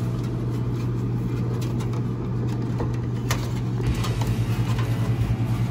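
A steady low mechanical hum that takes on an even pulsing about four seconds in, with a couple of faint light clicks as small front-panel connectors are handled on the motherboard pins.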